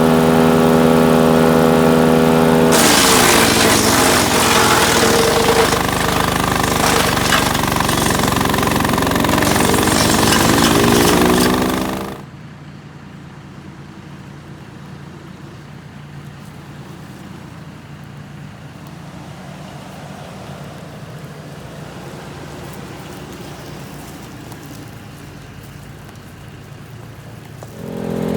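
Split-Fire 4090 wood chipper's engine running steadily, then a branch fed in: a loud grinding and chipping, with the engine pitch dipping and recovering under the load. About twelve seconds in the loud sound cuts off suddenly, leaving a much quieter steady mechanical hum.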